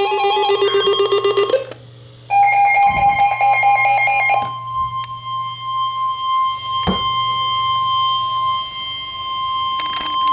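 Electronic tones stepping up and down in a short tune, twice, then a steady single-pitch alert tone from about three seconds in: the 1050 Hz warning alarm tone of an Emergency Alert System weather broadcast, signalling a flash flood warning.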